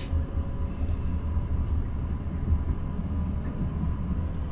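Passenger train moving after pulling out of the station, heard from inside the carriage: a steady low rumble with a faint steady whine over it.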